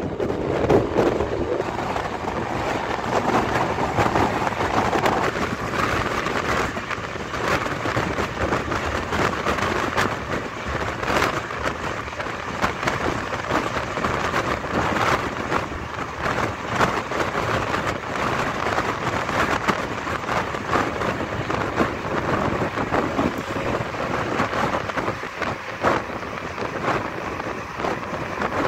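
An SETC bus running at highway speed, heard from inside the cabin: a steady rush of engine, tyre and wind noise with constant clattering rattles.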